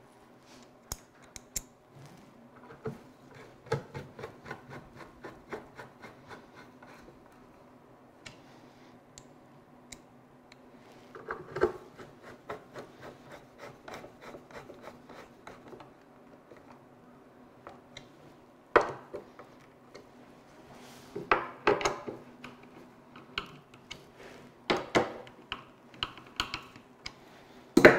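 Wood screws being turned back into their holes with a wooden-handled hand screwdriver: a run of small creaking, scratching turns, broken by several louder knocks and clicks.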